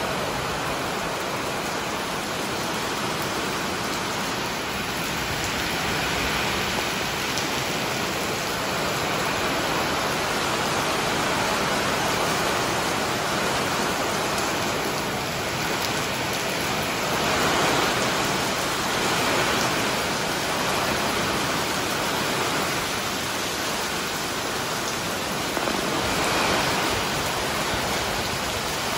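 Steady rain falling, an even, dense hiss that swells a little now and then.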